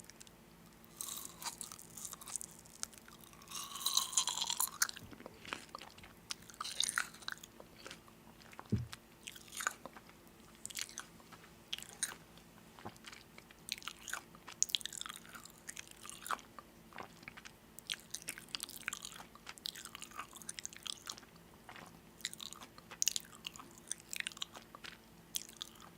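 Person chewing and biting crunchy food, with irregular crisp crunches, and a brief pitched squeak about four seconds in.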